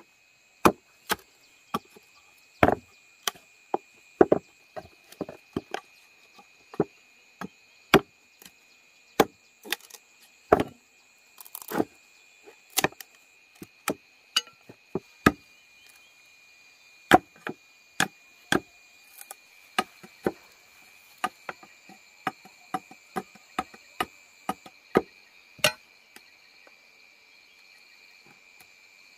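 Repeated sharp chopping strikes on wood, coming irregularly at about one or two a second, over the steady high trilling of insects.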